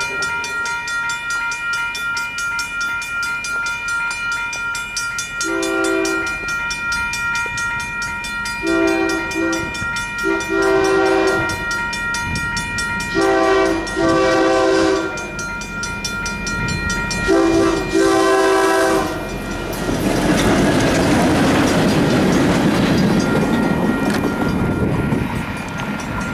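Railroad crossing bell ringing throughout while a Union Pacific freight's diesel locomotive sounds its horn in a series of long and short blasts, about seven in all. From about twenty seconds in, the locomotive and freight cars run past over the crossing with steady wheel noise.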